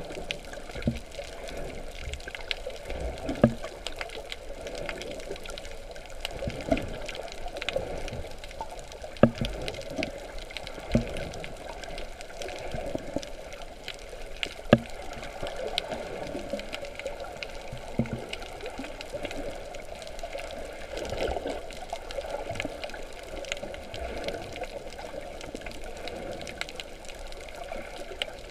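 Water sloshing and trickling around a snorkeler's camera, with scattered clicks and a few sharper knocks throughout.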